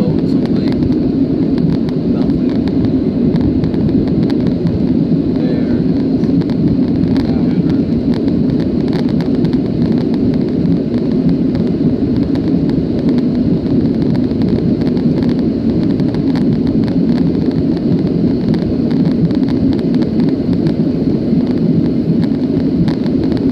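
Steady low roar inside the cabin of a Boeing 737-700 in flight: its CFM56-7B jet engines and the airflow over the fuselage, holding an even level throughout.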